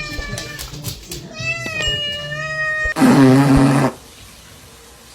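A cat meowing in long, drawn-out calls that glide in pitch, then a loud, harsh, low-pitched cry lasting about a second, cut off about four seconds in.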